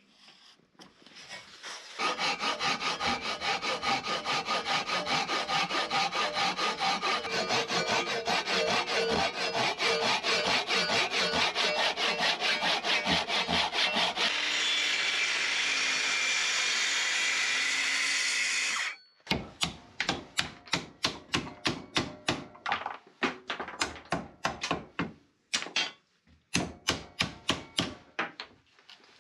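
Handsaw cutting across a thick timber bearer in quick, steady strokes for about twelve seconds, turning to a steadier, higher rasp for a few seconds as the cut goes on. After a break, sharp hammer knocks, about two a second, break out the waste between closely spaced saw cuts in a timber block held in a vice, the start of a lap joint.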